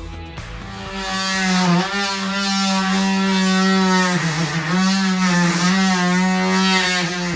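Electric power tool motor running at a steady pitch and briefly dropping in pitch a few times as it comes under load.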